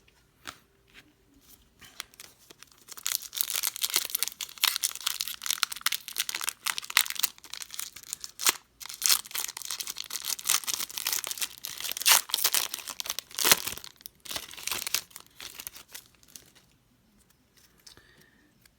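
A football trading-card pack's plastic wrapper being torn open and crinkled. It is a long run of crackling and tearing with sharp snaps, lasting about fourteen seconds, and stops shortly before the end.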